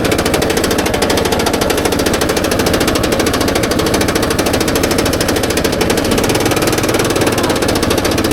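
Kubota SPJ400 rice transplanter running on a test run, its engine and drive giving a steady, rapid, even clatter.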